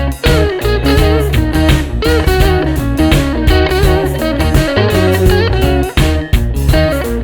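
Background music: an instrumental stretch of a song, led by guitar.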